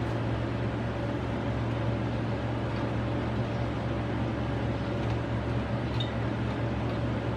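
Steady low mechanical hum with a faint constant higher tone, with a faint click about six seconds in.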